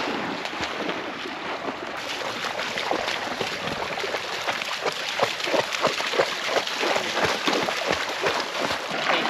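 Dogs splashing through shallow lake water, a steady run of small splashes and sloshes that grows busier about two seconds in.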